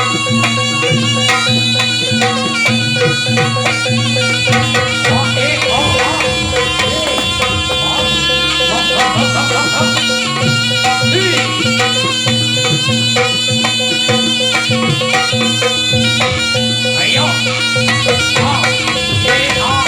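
Traditional Javanese barongan accompaniment music: a reedy, bagpipe-like shawm plays a wavering melody over steady held tones, and the band keeps playing without a break.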